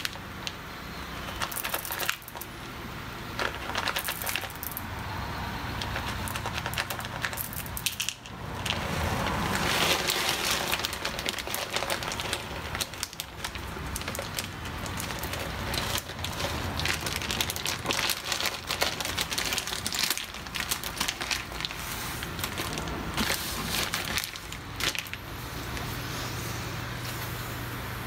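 Green (unroasted) Typica Longberry coffee beans poured by hand from a plastic bag into a plastic tray on a kitchen scale: many small rattles and clicks as the beans drop, with crinkling of the plastic bag.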